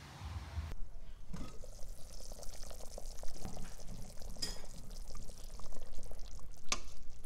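Thick red-wine beef stew bubbling in the pot, a steady crackle of small pops, while a metal ladle stirs it, with two sharp clinks in the second half.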